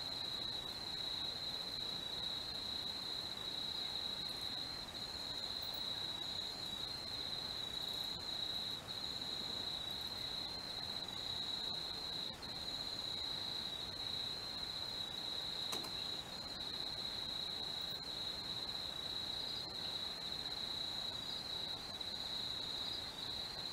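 A steady, high-pitched chorus of night insects, crickets trilling without a break. One sharp click comes about 16 seconds in.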